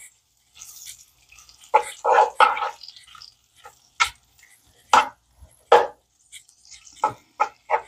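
A spatula stirring and scraping pieces of pork around a nonstick sauté pan as the meat starts to sauté: a string of short knocks and scrapes, roughly one a second.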